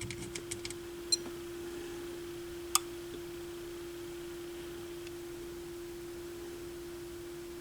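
A test meter gives a steady, single mid-pitched tone while it slowly measures a large filter capacitor in circuit, with a few light clicks of the probes in the first three seconds.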